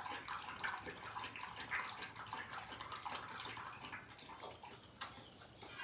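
Metal spoon scraping and tapping in a stainless steel bowl as food is scooped and eaten: quiet, irregular small clicks and scrapes over a faint hiss, with a sharper clink about five seconds in.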